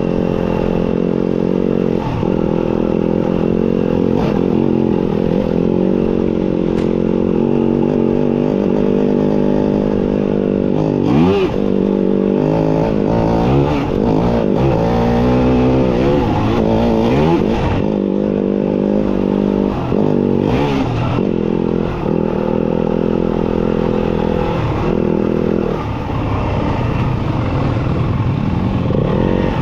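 Off-road motorcycle engine running under way, its revs rising and falling over and over as the throttle is worked, with occasional clattering knocks.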